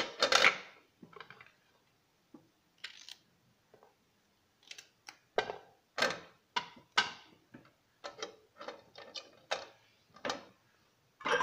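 Raw banana halves being set down and shifted by hand on a perforated metal steamer plate inside a pressure cooker: irregular light knocks and taps of fruit and fingers on metal, sparse at first and busier in the second half.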